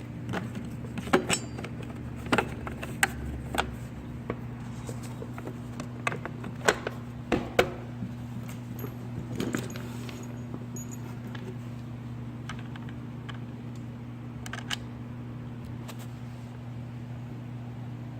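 Clicks, taps and rattles of plastic and metal parts as a cover is fitted back onto a Stihl TS800 cut-off saw, mostly in the first half, with a steady low hum underneath.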